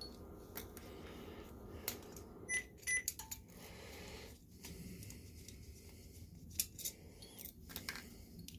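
Scattered light metallic clicks and clinks from a screwdriver working the spring clip on a projector lamp's sheet-metal housing, with two short ringing clinks close together about two and a half seconds in.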